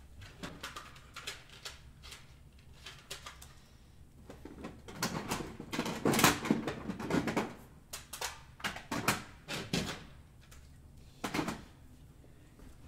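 A string of short rustles, clicks and knocks of objects being handled, busiest and loudest between about five and ten seconds in, with one more rustle just after eleven seconds.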